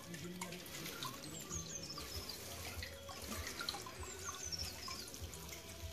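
Spring water trickling and gurgling over rocks where it wells up from the ground, a steady low run with small drip-like splashes.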